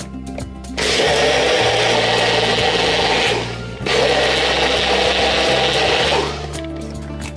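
Personal bullet-style blender running in two pulses of about two and a half seconds each, with a short stop between, its cross blade whirring through a watery mixture.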